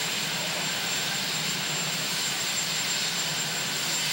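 Helicopter turbine engines running steadily at idle: a constant rushing noise with a thin, high, steady whine.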